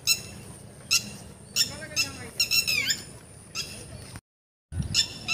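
Birds squawking: a string of short, harsh, high calls, some coming in quick runs, with the sound cutting out briefly about four seconds in.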